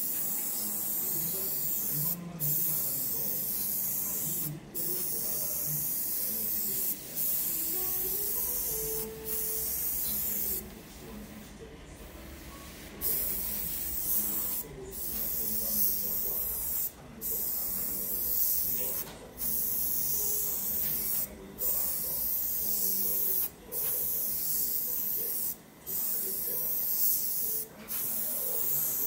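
Gravity-feed airbrush spraying paint: a steady high hiss broken by brief stops about every two seconds, with one longer pause of about two seconds near the middle.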